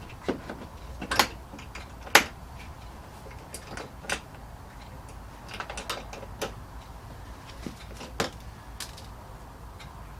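Plastic bumper-cover trim clips being worked loose and pried out: a series of irregular sharp clicks and snaps, the loudest about two seconds in.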